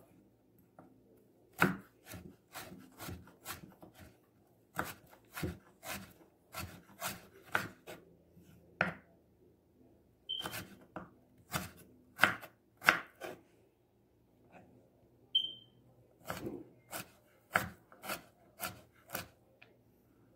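A sharp green-bladed kitchen knife chopping carrots into small dice on a cutting board: quick, uneven runs of sharp knocks with short pauses between them.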